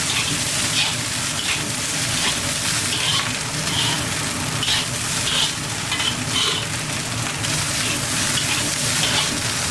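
Fried rice sizzling in a hot pan as it is stirred, a steady frying hiss broken by short, repeated scraping sounds.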